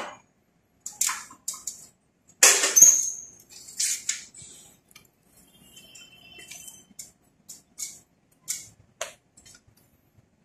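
Electrical cord being pulled and pressed along a wall by hand: scattered clicks, rustles and scrapes, with one louder scrape and a brief squeak about two and a half seconds in.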